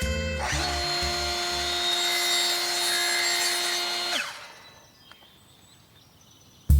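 An electric power tool's motor running steadily for about three and a half seconds with a constant whine, then winding down as it is switched off.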